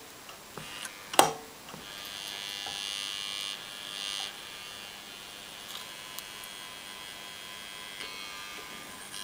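A homemade speaker built from a Pioneer 60-watt voice coil and a coffee-tin lid buzzing as rectified variac current, about an amp, is pushed through it to overheat and burn out the coil. A sharp click about a second in; the buzz starts just after, is louder for a couple of seconds, then settles to a weaker steady buzz.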